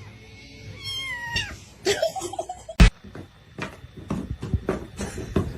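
A cat meowing: short calls that fall in pitch, about one and two seconds in. A single sharp knock follows just before the middle, then a run of quick taps or clicks, several a second.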